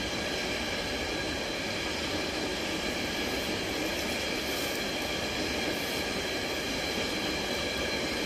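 Empty container flat wagons of a freight train rolling steadily past, wheels running on the rails, with a steady high-pitched squeal or ringing from the wheels.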